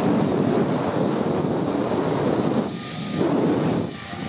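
Loud rush of wind buffeting the microphone while riding a zipline at speed, easing briefly twice, about three seconds in and near the end.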